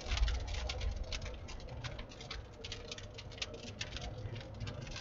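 Large raindrops pattering irregularly on a moving vehicle, many quick taps a second, over the low rumble of the car on the road.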